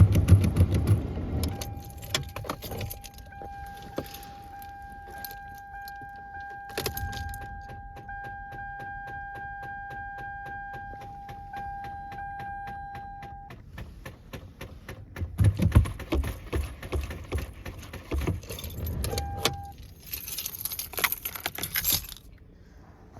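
Car engine being cranked by the starter without catching, in rhythmic bursts at the start and again about fifteen seconds in. Between the attempts a steady high tone sounds for about twelve seconds.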